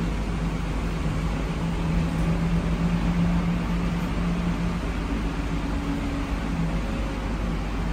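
Interior ride noise of a Solaris trolleybus under way: steady rumble and road noise with a low electric hum holding one pitch, which eases a little after the middle while a second, higher tone sounds briefly near the end.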